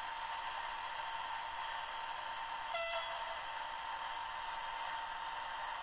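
Sound decoder in a model FS D.443 diesel locomotive, heard through its small speaker: a steady hissy running sound with a constant tone, and one short horn toot about three seconds in.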